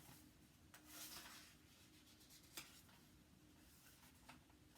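Near silence with a faint paper rustle about a second in and a soft tick a little later, typical of a picture book's page being handled and turned.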